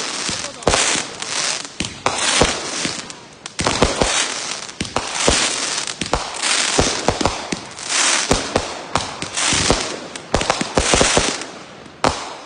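A finale board of fused consumer firework cakes firing in a continuous barrage: rapid sharp bangs, several a second, with repeated spells of bright hiss between and over them.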